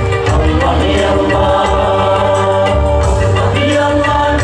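Male vocalist singing live through a PA system, holding long notes and bending them in ornamented runs over an amplified accompaniment with a steady low bass.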